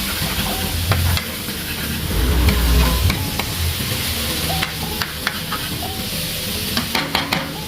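Food sizzling in a hot pan while it is stirred, with a steady hiss and the spatula clicking and scraping against the pan, most often near the end.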